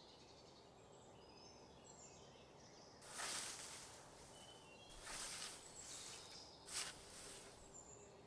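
Several swishes of a scythe cutting through meadow grass, starting about three seconds in and spaced roughly a second apart, over faint bird chirps.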